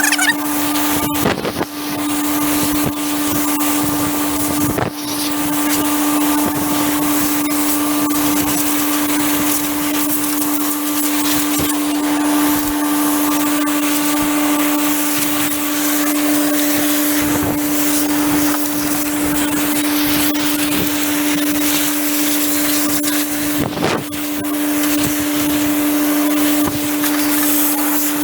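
Compressed-air blow gun blasting a hay baler clean, a loud steady hiss, while a Hydrovane compressor runs with a steady hum underneath. The air blast drops briefly a few times, about a second and a half in, near five seconds and near the end.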